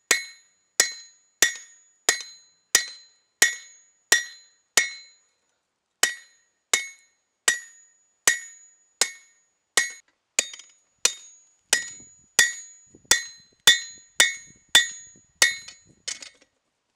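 Hand hammer striking a leaf-spring steel shamshir blade on an anvil as it is forged, a steady run of ringing blows about one and a half a second. There is a pause of about a second around five seconds in.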